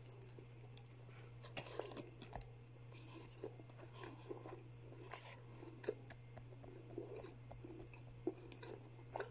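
Faint chewing and crunching of crispy fried chicken, with irregular sharp crackles as the crisp coating is bitten and pulled apart by hand. A steady low hum runs underneath.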